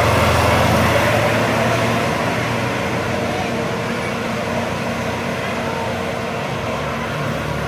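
Bus engine and road noise as a bus passes on a steep uphill and pulls away, the sound fading steadily.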